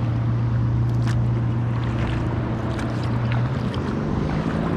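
Motorboat engine droning steadily, its pitch shifting about three and a half seconds in, over water lapping against a kayak with small splashes and wind on the microphone.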